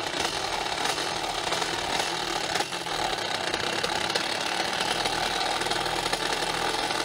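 Simson S51 moped's tuned 85 cc two-stroke reed-valve cylinder with a Tassinari VForce3 reed block, running steadily under way, heard on board the bike.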